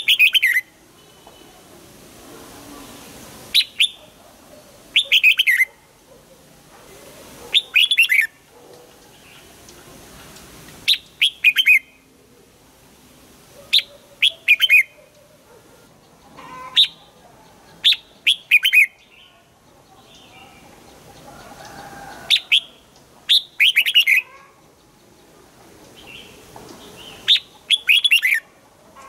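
Red-whiskered bulbul singing: short, quick phrases of a few clear, sharp notes, repeated every two to three seconds.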